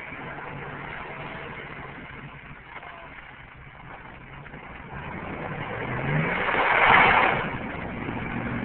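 Hummer H2's V8 engine running at low speed, revving up about six seconds in, followed by a loud crunch and splash as the truck breaks through the ice into the water, lasting about a second.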